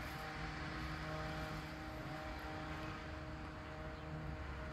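Distant Boeing 777-300ER jet airliner climbing away after take-off: a steady rumble from its twin GE90 turbofan engines, with a few faint steady hum tones.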